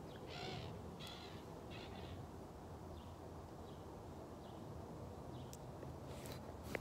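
Camera being handled against fabric: faint rustling, with three short hissy sounds in the first two seconds and a sharp click near the end.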